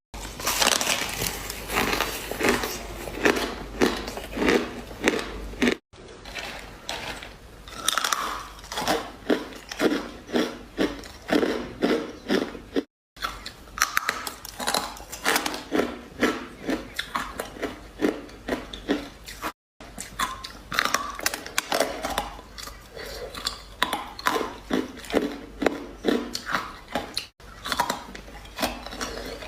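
Close-up crunching of ice being bitten and chewed, a rapid run of sharp crunches several a second. It is broken by a few brief silent cuts where one clip joins the next.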